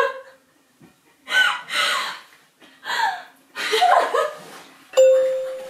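Young women stifling laughter and gasping in short bursts. About five seconds in, a sudden ringing tone starts and holds steady, slowly fading.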